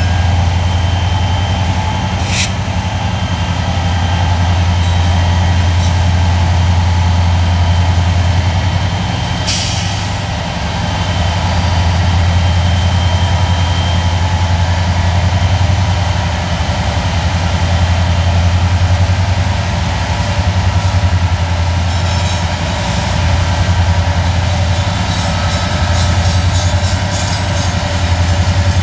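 Diesel-electric freight locomotives rolling slowly past, their engines running with a steady low drone. Two short hisses sound about two seconds and about ten seconds in.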